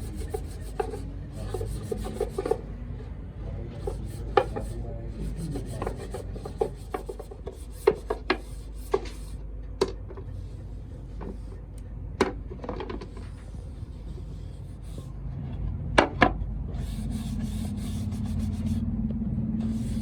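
Hand work on wood: scraping or rasping with occasional sharp knocks of wood on wood. A steady low hum comes in near the end.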